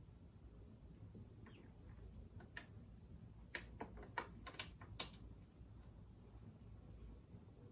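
Near silence, broken by a quick run of about eight light clicks between three and a half and five seconds in, from small metal hardware or hand tools being handled during reassembly.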